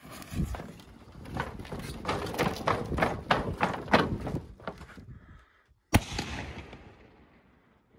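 Ball shell salute launched from a mortar tube: one sharp lift-charge thump about six seconds in, trailed by a fading hiss. Before it comes a run of irregular knocks and scuffs.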